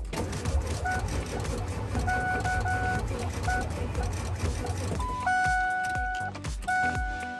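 Engine noise from a 2000 Ford F350's 7.3-litre Power Stroke turbo-diesel V8 for about five seconds, then it cuts off, with background music playing over it.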